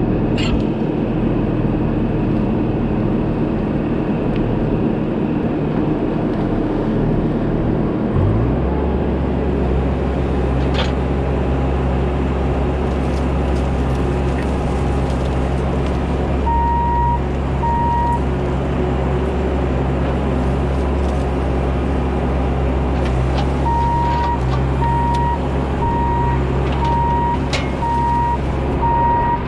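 Bobcat E42 mini excavator's diesel engine running under load. It steps up in speed about eight seconds in, and a repeated beeping alarm sounds twice in the second half.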